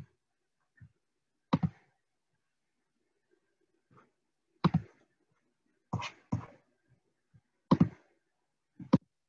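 About six sharp clicks and knocks from working a computer, irregularly spaced a second or more apart, some in quick pairs.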